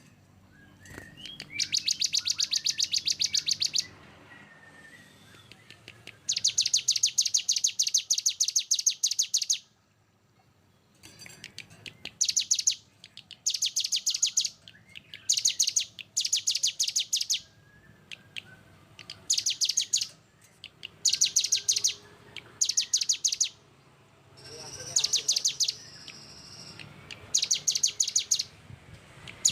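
A songbird giving fast, dense, harsh trills, the 'tembakan' bursts used as masteran tutor song for competition birds. The bursts are high-pitched rapid-fire pulses lasting one to three seconds each, repeated about a dozen times with short pauses between.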